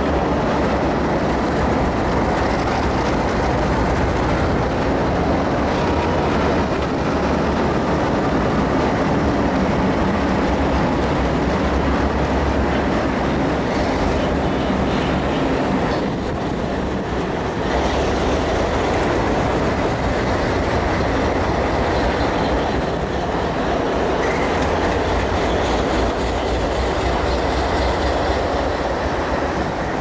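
Diesel freight locomotives, Alco road switchers, moving slowly past at close range: steady engine running and wheel-on-rail noise, with a brief drop in level about halfway through.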